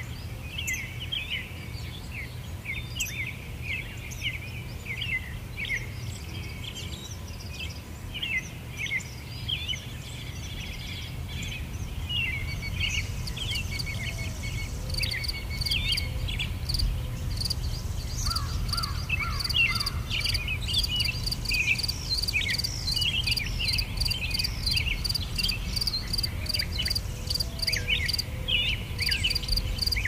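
Woodland ambience: many small birds chirping in short calls, with an insect's rhythmic high pulsing trill joining about halfway through, over a low steady background rumble.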